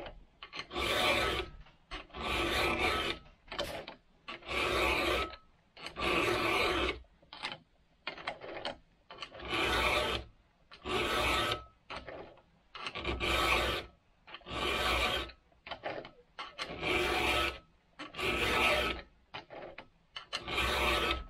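Round chainsaw file rasping across the steel cutter teeth of a saw chain, in steady strokes of under a second each, about one every second and a half, with light clinks between strokes.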